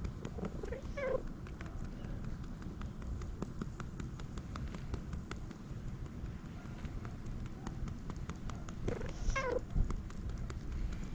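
Tabby-and-white cat making two short, pigeon-like cooing calls while its lower back is patted quickly, one about a second in and one near the end. Faint taps from the patting sound between the calls.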